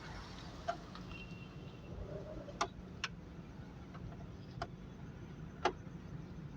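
Several short, sharp clicks and taps a second or so apart over a low steady background noise: tools and pipe fittings being handled while AC pipes are fitted to a car's compressor and condenser.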